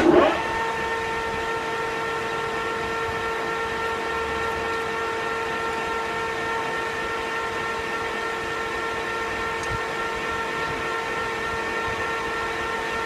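Metal lathe starting up and running at a steady speed, giving an even whine over a mechanical hum.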